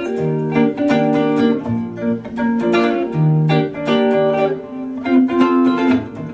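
Electric guitar, played with a clean tone, strumming chords in an instrumental break of a song, moving to a new chord every second or so.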